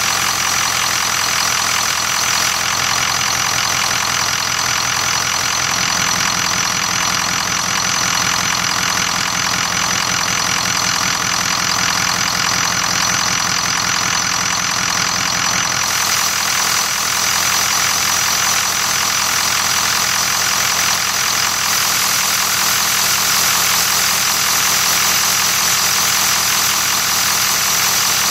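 Ford 6.0 Powerstroke V8 turbodiesel idling with a high, steady whistle over the engine sound. The owner traces the whistle to the variable-geometry turbo oscillating, apparently normal at idle on the earliest 6.0 engines.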